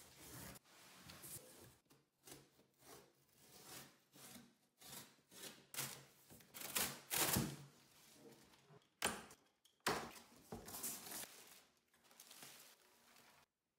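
Cardboard box and plastic wrapping being handled while grill parts are unpacked: irregular rustling and scraping with a few knocks, loudest a little past the middle.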